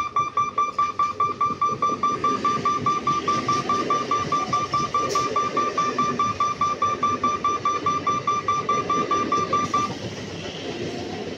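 Level-crossing warning bell ringing in rapid even pulses, about five a second, then stopping about ten seconds in. Underneath, an electric local train rolls past with a steady rumble of wheels on the rails.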